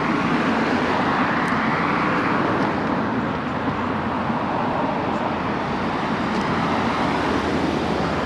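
Steady road-traffic noise, a continuous hiss of passing cars that swells slightly in the first couple of seconds.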